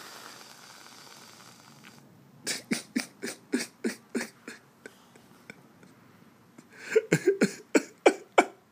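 Aerosol whipped-cream can hissing for about two seconds as cream is sprayed into a child's mouth. Then the child, mouth full of cream, splutters in two runs of short bursts, about four a second, the second run louder.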